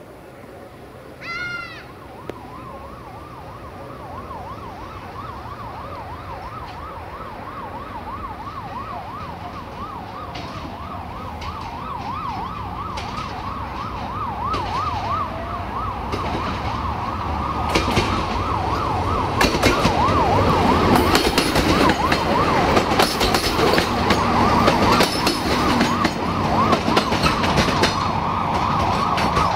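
An emergency-vehicle siren wails, then turns to a fast yelp, growing steadily louder. Under it a Desiro diesel multiple unit approaches, and from about halfway its wheels click sharply over the rail joints.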